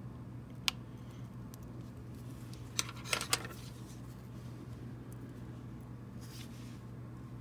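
Light clicks and taps of a hobby knife and steel tweezers being handled against a steel ruler while cutting and picking up small strips of reflective tape: one click about a second in, then three in quick succession around three seconds in, over a steady low hum.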